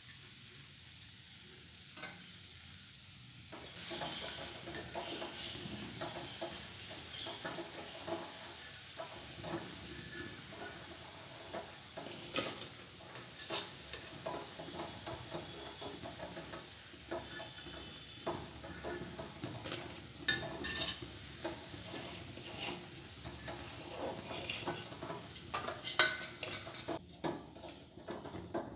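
Batter fritters deep-frying in hot oil in a kadhai, a steady sizzle that grows louder about four seconds in. A wire skimmer clinks and scrapes against the pan throughout as the fritters are turned and lifted out, with the sharpest clink near the end.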